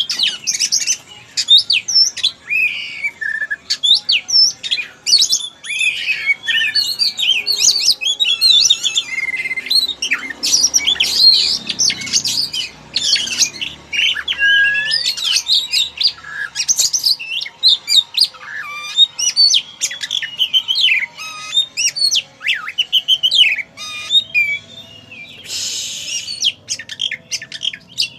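Oriental magpie-robin (kacer) in full song: a continuous, loud stream of varied whistled and warbled phrases, with one short harsh rasp near the end.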